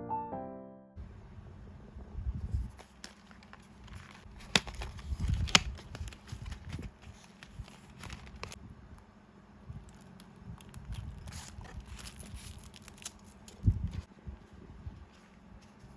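Piano music fades out in the first second, then hands handle craft materials: soft rustling and crinkling with small sharp clicks and taps, the loudest a cluster of clicks about four to six seconds in and a knock near fourteen seconds.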